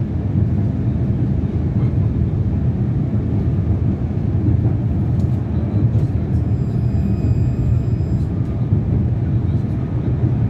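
Interior running noise of a 71-911EM 'Lvyonok' low-floor tram in motion: a steady, deep rumble from the running gear. A faint high whine comes in for about two seconds around the middle.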